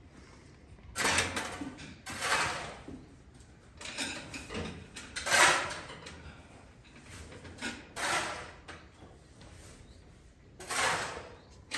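Shovel scraping across a concrete floor as a pile of feed is turned and mixed by hand, in about six separate strokes a second or two apart.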